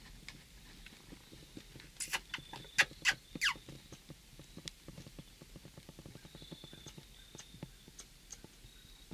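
Tree squirrel barking: a few sharp calls, the last sliding down in pitch, over fast faint ticking and rustling.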